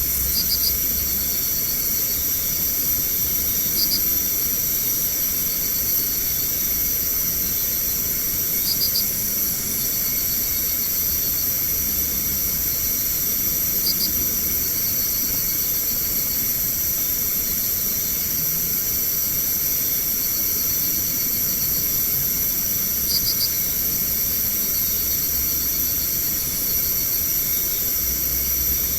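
Night insects such as crickets calling in a continuous high-pitched chorus, with a short pulsed chirp repeating every few seconds.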